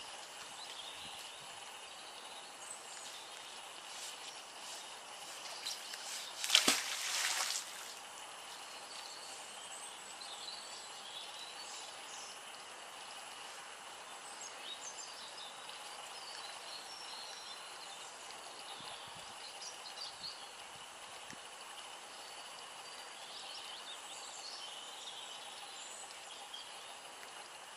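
Steady outdoor background noise with small birds chirping on and off. About six and a half seconds in there is a sudden burst of noise lasting about a second, the loudest thing here.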